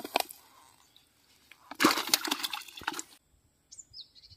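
Water splashing in a burst of about a second and a half, about two seconds in: a freshly caught walking catfish thrashing in the water. A few clicks come at the start and a short high chirp near the end.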